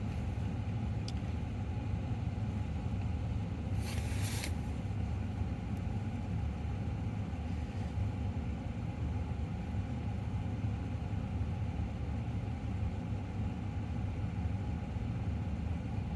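Car engine idling steadily with a low rumble. A short hiss or rustle comes about four seconds in.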